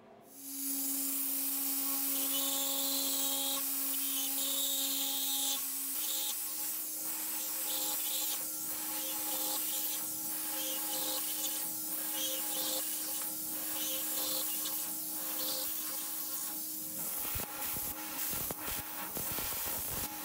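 CNC router spindle running with a steady whine while a small cutter machines a row of round holes into a part clamped over the edge of the bed, with a high hiss of cutting over it. The whine steps slightly higher in pitch about six seconds in, and near the end a quick run of clicks and knocks joins it.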